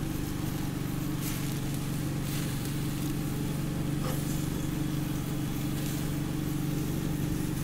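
A steady, unchanging engine hum, like an idling motor, with a few light metallic clicks as metal tongs turn steaks on the grill grate.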